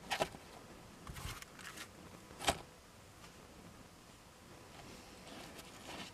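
A few brief rustles and clicks of something being handled, with one sharp click about two and a half seconds in and little after it.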